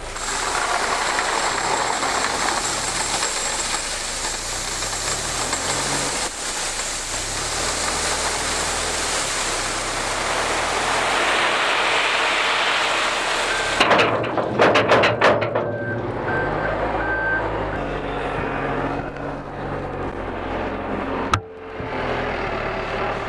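Rock pouring from a telehandler bucket into a volumetric concrete mixer's aggregate bin, a dense rushing of gravel over a diesel engine. About fourteen seconds in come several loud clanks, then the engine runs on with a brief reversing alarm beeping.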